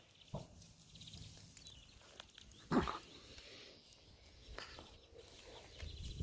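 Frogs croaking faintly, a few short separate croaks, the loudest nearly three seconds in.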